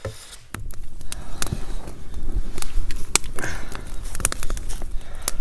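Dry-grass tinder bundle catching and burning, crackling with sharp, irregular pops over a low rumble; the crackling gets loud about half a second in.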